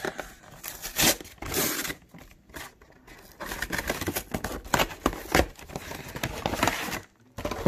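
Clear plastic packaging tray of a trading-card collection box crinkling and crackling as it is handled and pulled out, with repeated sharp snaps and clicks.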